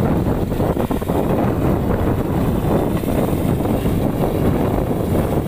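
Steady engine noise from rice combine harvesters working a muddy paddy field, mixed with wind buffeting the microphone.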